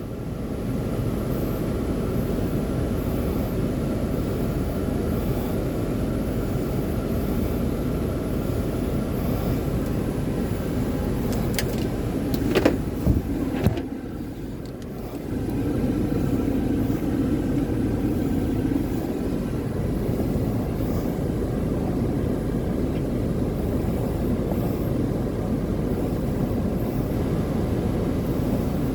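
Steady low rumble of a vehicle on the move, with a few sharp clicks and a short lull about halfway through.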